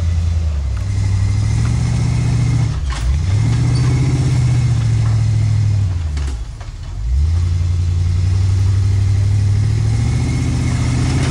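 GMC wrecker's engine revving hard under load as the truck backs up over rocks. The engine note climbs and holds high, easing off briefly twice, about three seconds in and again around six to seven seconds.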